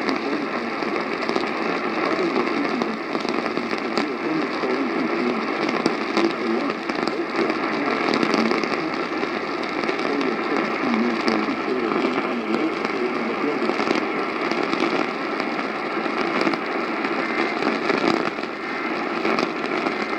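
AM radio static: a steady hiss with scattered crackles from a weak or untuned AM signal.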